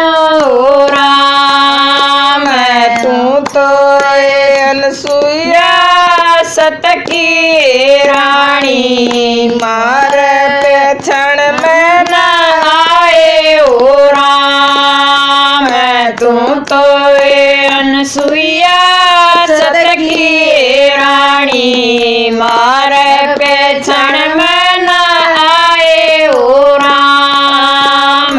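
Women singing a Haryanvi folk bhajan (devotional hymn) without instruments, in long held, drawn-out notes that slide up and down.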